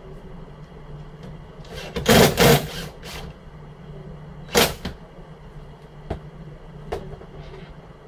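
Cordless drill driving screws into a steel door frame: a burst of about a second and a half with two loud peaks, then a shorter burst about two seconds later, followed by a few light clicks.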